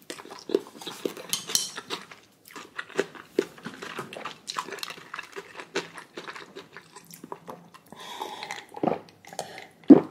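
A person eating black-bean instant noodles with kimchi, close to the microphone: chewing, with frequent short clicks and clinks of utensils against a dish, and a louder knock near the end.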